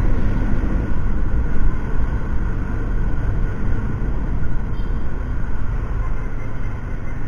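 Honda Click 150 scooter riding along a city street: steady engine and road noise, with heavy low wind rumble on the microphone.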